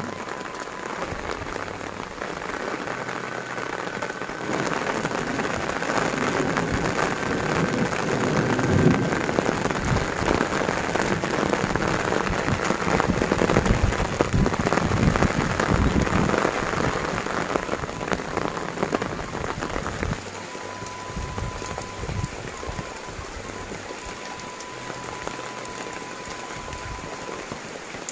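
Heavy rain falling steadily. It grows louder a few seconds in, then drops suddenly to a lighter level about two-thirds of the way through.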